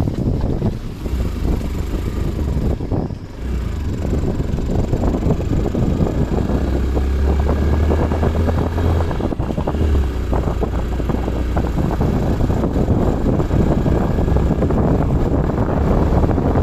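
Motorcycle running along a rough mountain road, its engine under steady heavy wind rumble on the microphone, with a brief lull about three seconds in.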